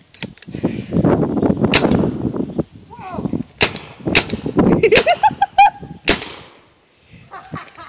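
Paintball gun firing about six sharp pops at irregular intervals, spread over some six seconds.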